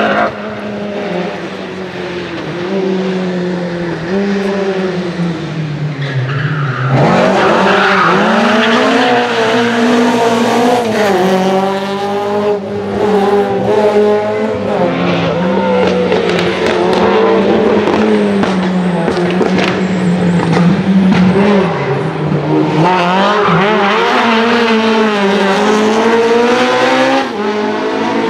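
BMW E30 M3 Group A rally car's S14 2.3-litre straight-four engine revving hard at speed. Its note climbs and drops again and again through gear changes and lifts, and gets louder about seven seconds in as the car closes in.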